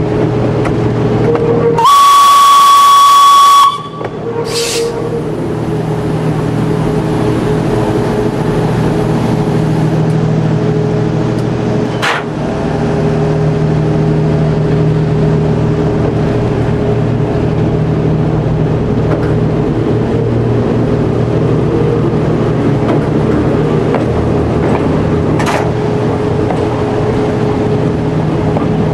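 A narrow-gauge train's engine runs steadily while it rolls along the track. About two seconds in, a loud, long, single-pitched whistle blast sounds as the train nears a road level crossing, followed by a short second toot. Faint clicks come from the wheels on the rails.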